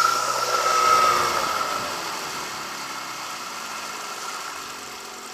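Johnson 15 hp outboard motor being throttled back from full speed: its pitch and loudness fall steadily over a few seconds as it drops toward idle. The rush of water and wind fades along with it.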